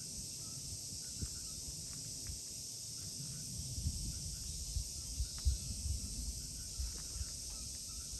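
Steady high-pitched insect drone, with irregular low rumbles on the microphone from about halfway through.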